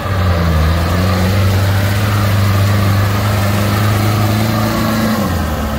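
Off-road 4x4's engine running close by, its revs climbing slowly, then easing off about five seconds in.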